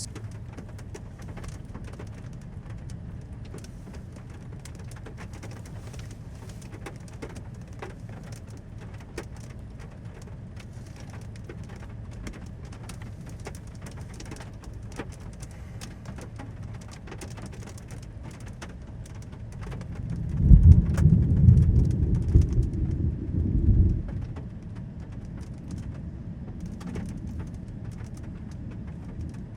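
Storm ambience: a steady low wind rumble with scattered drops ticking. About twenty seconds in, a much louder low rumble lasts about four seconds.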